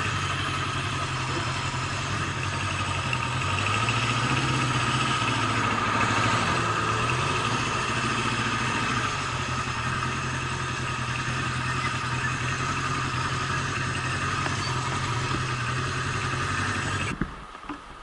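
Honda CB750's air-cooled inline-four engine idling and ticking over at low speed, with slight rises and falls in revs. It is switched off near the end and cuts out suddenly.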